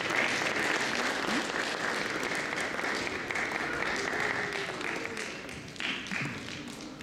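Audience applauding, the clapping fading down over the last couple of seconds.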